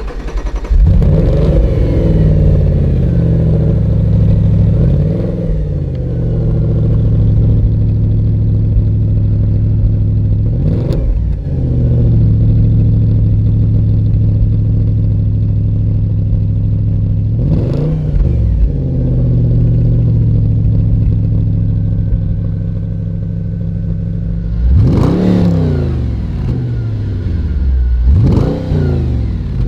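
Audi RS4 B7's 4.2-litre V8 through its stock exhaust, idling steadily between sharp throttle blips. It flares up just after the start, revs briefly a few times in the middle, then revs three times in quick succession near the end.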